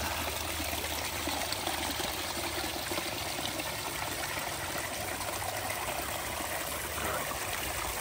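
Water from a backyard pond stream cascading down a small rock spillway into the pond: a steady trickling rush of falling water.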